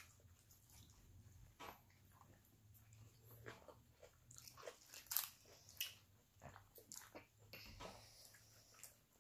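Faint close-up chewing and crunching of crunchy food, a string of irregular crisp crunches, the loudest about five seconds in.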